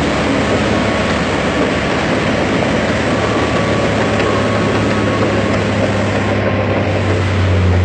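Heavy diesel engines of construction machinery running hard under load while a stuck crane is pulled free, with a low engine hum that grows louder near the end.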